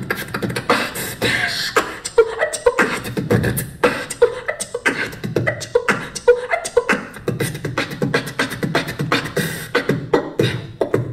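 Vocal beatboxing into a handheld microphone: a fast, uneven run of mouth-made drum hits, with short pitched vocal sounds between them.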